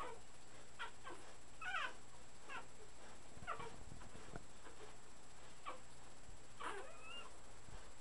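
Three-week-old puppies squeaking and whimpering while nursing: a string of short, high, wavering squeaks, with a longer, drawn-out whine near the end.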